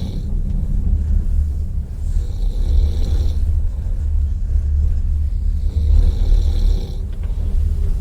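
A sleeping passenger snoring in a railway sleeper carriage, one long snoring breath about every three and a half seconds, over a steady low rumble.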